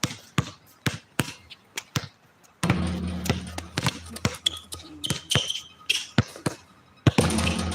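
Basketball bouncing repeatedly on an outdoor court, a run of sharp irregular thuds. A low steady rumble joins about two and a half seconds in and again near the end.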